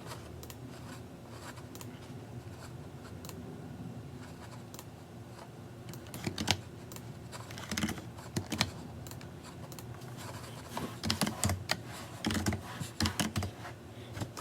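Computer keyboard typing played at double speed: scattered light key taps for the first several seconds, then quick flurries of keystrokes about six and eight seconds in and again over the last few seconds, over a steady low hum.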